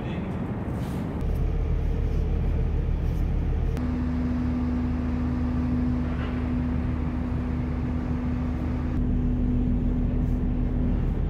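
A ferry's engines droning steadily and low. A single steady hum tone joins about four seconds in and holds until near the end.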